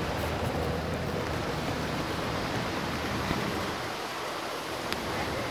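O scale two-rail model steam locomotive (a Lobaugh 0-6-0 kit) running along the track: a steady rushing whir from its motor, gearbox and wheels on the rails. There is one faint click near the end.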